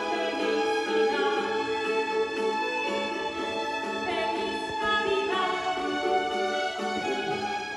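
A young students' violin ensemble playing a song in unison with a singer's voice over it, the music continuing without a break.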